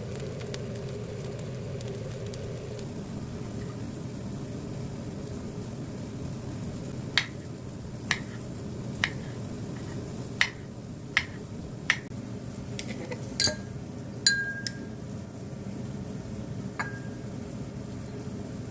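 Kitchenware clinking: a series of sharp clicks and clinks of utensils and dishes, roughly one a second from about a third of the way in, a few of them ringing briefly, over a steady low hum.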